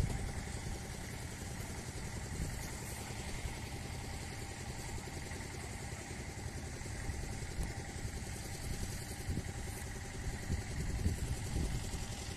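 Oil pumping and filtration machinery running with a steady, engine-like low drone while transformer oil is being transferred, with a few soft knocks late on.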